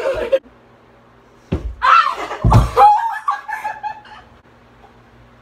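Girls laughing and shrieking, with two heavy thumps about a second apart near the middle as someone drops onto the floor.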